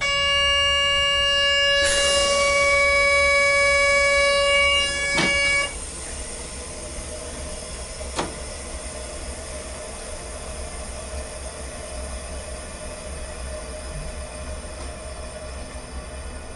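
ICM train's horn sounding one steady loud tone for about five and a half seconds, heard from inside the cab, then cutting off abruptly. Afterwards the steady running noise of the train in the cab, with a single click about eight seconds in.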